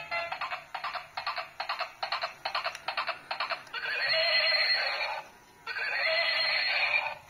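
Battery-powered toy unicorn carriage playing electronic sound effects through its small speaker: clip-clop hoofbeats at about four a second, then a horse neigh twice, each over a second long.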